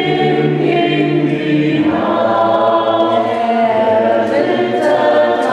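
Mixed choir of men and women singing in parts, holding long sustained chords, moving to a new chord about two seconds in.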